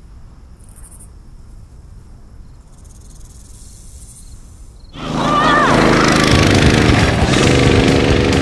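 Quiet outdoor ambience with a faint buzz, then about five seconds in the small petrol engine of a two-seat off-road buggy comes in suddenly and loud, running steadily.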